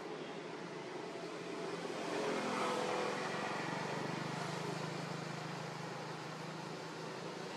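A motor vehicle engine going by over a steady background hiss, growing louder about two to three seconds in and leaving a low steady hum.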